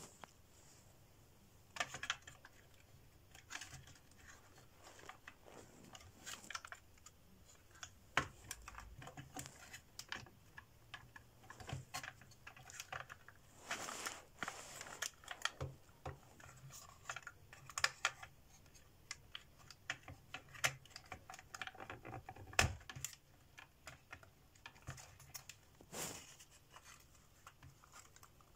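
Hands handling and fitting pieces of a laser-cut plywood clock model: faint, irregular light clicks and taps of wood on wood.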